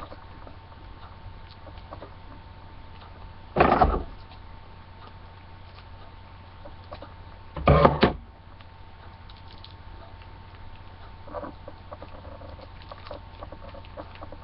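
Steady low electrical hum with a faint high tone, broken twice, about four seconds apart, by short loud handling noises as a small plastic parts bag is worked open by hand.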